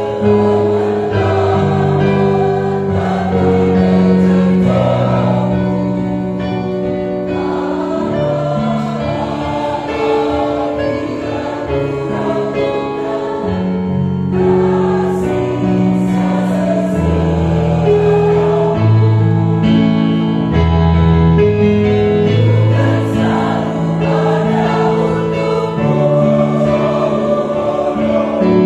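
Mixed church choir of men's and women's voices singing a hymn in parts, with long held chords that change every second or two.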